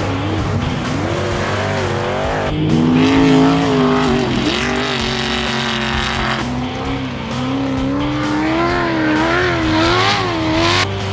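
Off-road race car engines revving hard, the pitch rising and falling again and again as the throttle comes on and off. The engine sound changes suddenly about two and a half and six and a half seconds in, and again near the end.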